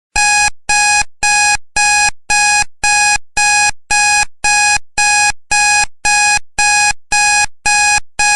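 Countdown timer alarm going off: a rapid run of identical loud electronic beeps, about two a second, starting suddenly out of silence, signalling that the timer has reached zero.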